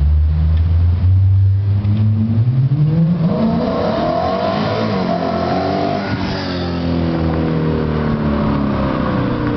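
BMW E92 M3's V8 through an RPi GT Race exhaust, accelerating in a pass-by. A low note rises in pitch as the car speeds up and approaches, peaks about six seconds in as it goes past, then falls away as it drives off.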